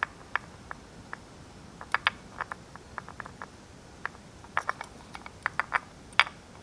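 Light, irregular clicks and taps of small carburetor parts being handled as a Bing 64 carburetor's slide and diaphragm are fitted back into the body, the needle guided into the needle jet. The clicks come in scattered clusters, thickest about two seconds in and again after the four-second mark.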